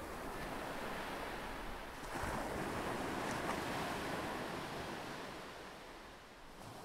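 A soft wash of noise like surf or wind, with no tune or beat, swelling about two seconds in and fading away near the end.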